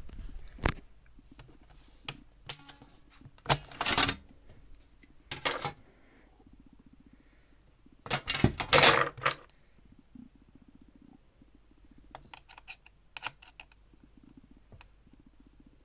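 Irregular clicks, taps and short rattling scrapes of small hard parts being handled, as when working on computer hardware. The loudest rattling bursts come about four and about nine seconds in, with scattered light clicks around them.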